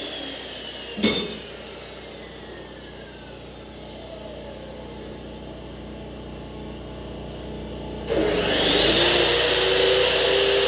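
Evolution cold-cut chop saw winding down after a cut through steel round bar, its whine falling, with a sharp clank about a second in. About eight seconds in the saw starts again, its whine rising, and it cuts into the bar.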